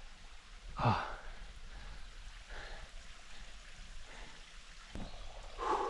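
A climber breathing hard from exertion: a short, loud exhale about a second in and another near the end, over a faint steady background hiss.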